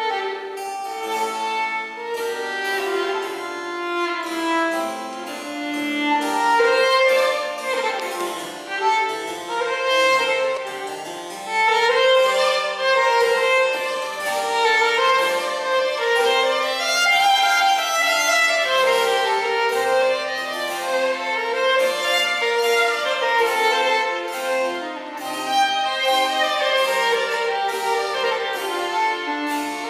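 Violin and harpsichord playing together: a bowed violin melody over the harpsichord's plucked chords.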